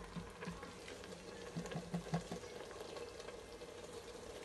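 Chopped onions quietly sizzling as they sauté in butter and olive oil in an Instant Pot, stirred with a wooden spoon, with a few light spoon knocks about halfway through.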